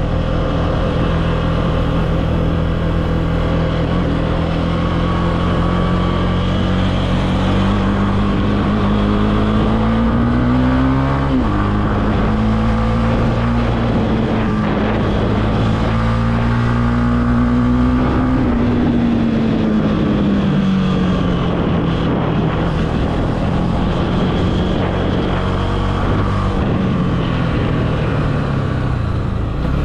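Honda CB300F's single-cylinder engine running under way. Its pitch climbs, drops sharply once about a third of the way in as a gear is changed, holds steady, then falls off just past halfway as the throttle closes, settling at lower revs.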